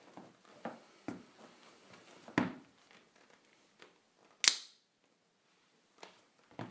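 Soft thuds of air-cushioned shoe heels on a wooden floor, then about halfway through a short, sharp hissing pop as a knife pierces the heel air unit of a Nike Air Max 2013.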